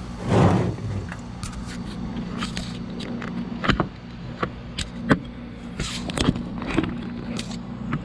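Paint-mixing gear being handled: a string of sharp clicks and knocks from a plastic mixing cup, stir stick and paint cans being moved and set down, over a low steady hum, with a brief rushing noise about half a second in.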